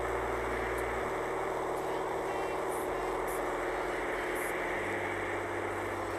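Music with a deep bass line that steps to a new note every one to two seconds, under a dense steady hiss.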